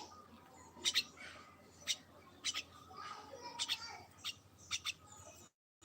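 A small bird calling in short, sharp, high chirps, often in quick pairs, every half second to a second. The sound cuts out briefly near the end.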